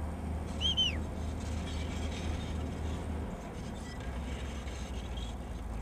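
Caterpillar D8 crawler bulldozer's diesel engine running with a low steady rumble as it pushes earth with its blade; the rumble drops and shifts a little about three seconds in. A short high chirp sounds under a second in.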